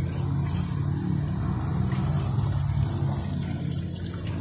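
A motor running steadily with a low hum.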